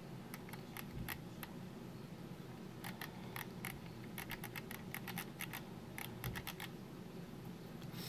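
Optical mouse scroll wheel ticking through its notches as a cotton swab rubs and turns it: a few scattered clicks at first, then a quick run of clicks from about three seconds in, over a low steady hum.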